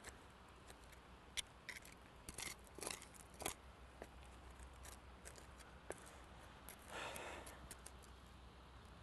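Hand weeding tool working at weeds in the turf: a scatter of faint, sharp snips and clicks, then a longer scrape about seven seconds in.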